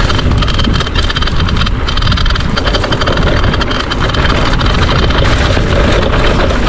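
Loud, steady wind buffeting on the microphone over the dense rattle and crunch of a mountain bike rolling over a rough trail.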